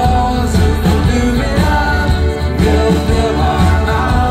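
A live band playing: acoustic guitar and drum kit over a steady bass line, loud and continuous.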